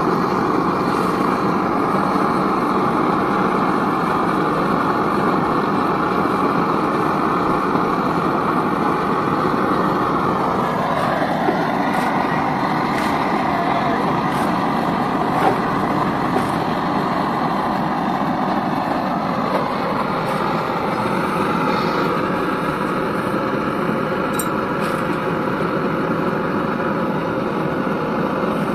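Gas torch burning with a steady rushing noise, keeping a copper soldering iron hot while a radiator tank seam is soldered, with a few faint clicks and scrapes of the iron on the metal.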